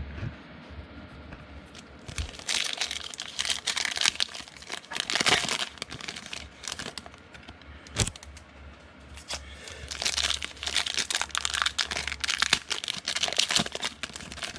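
Foil wrappers of trading card packs being torn open and crinkled, in two spells of crackling rustle, with a single sharp click about eight seconds in.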